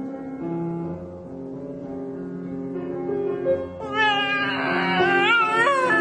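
Background music, then from about four seconds in a dog howling along in a high voice that wavers up and down in pitch.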